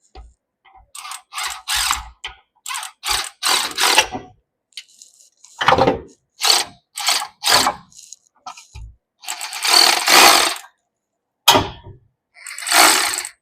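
A mechanic's tool working on the car's drivetrain during transmission removal: a string of short mechanical bursts, about three a second at first, then a few longer runs of a second or more near the end.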